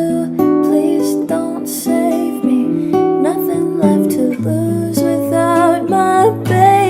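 Pop song playing: strummed acoustic guitar with a bass line that enters about two-thirds of the way through.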